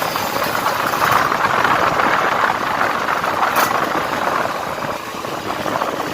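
Kawasaki Ninja RR's single-cylinder two-stroke engine running steadily through an aftermarket exhaust, fitted while the carburettor was left stock.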